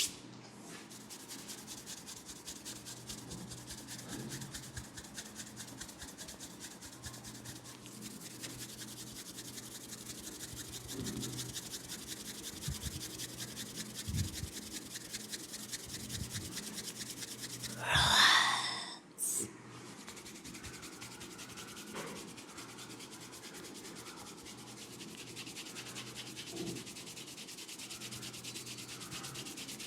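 Fingers rubbing briskly through hair and over the scalp in a head massage, a fast, even scratchy rubbing. About two-thirds of the way in comes a louder hiss lasting about a second.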